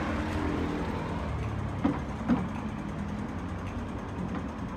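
Street traffic: a car passing close by, its engine note fading away over a steady hum of traffic. Two short, sharp sounds come about two seconds in.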